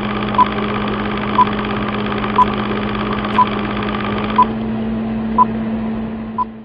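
Film-projector whirring sound effect with a steady hum and a short beep once a second, the ticking of a film countdown leader. The rattle thins about four and a half seconds in and fades out at the end.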